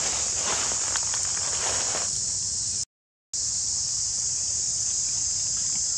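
Steady high-pitched chorus of insects in the trees, with rustling during the first two seconds; the sound drops out completely for a moment about halfway through.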